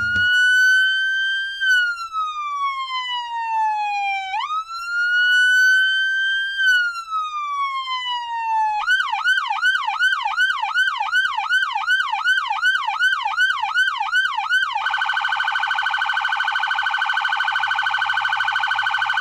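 Electronic police siren: two slow wails, each rising then falling, then a fast yelp at about two and a half sweeps a second, changing to a steady buzzing tone for the last few seconds.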